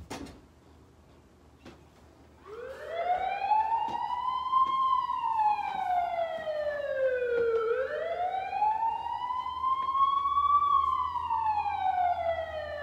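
Siren sample opening a hip-hop track played back: a wailing tone that rises and falls slowly twice, each sweep about five seconds long. A short click is heard at the very start.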